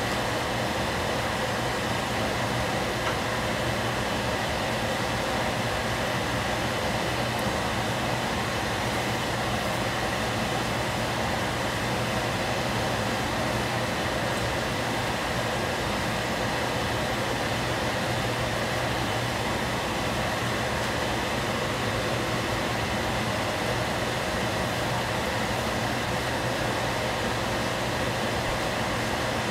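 Steady rushing noise with a low hum from a lit gas stove heating a covered saucepan.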